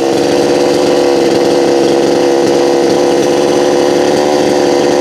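Two-stroke chainsaw running steadily at high speed, its engine note holding even throughout.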